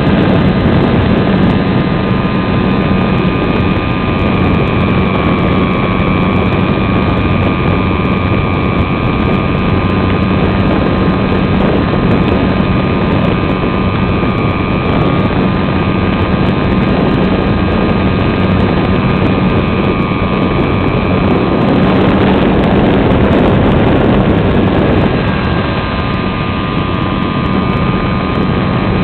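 Electric motor and propeller of an RC SIG Riser model plane heard from on board: a steady whine under heavy wind rush over the microphone. About three-quarters through, the whine fades under louder wind rush for a few seconds, then comes back.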